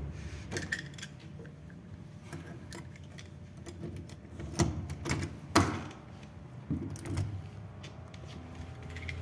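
Keys jangling and clicking, with small knocks, as a hotel room door is unlocked and opened. Two louder knocks come about a second apart a little past the middle.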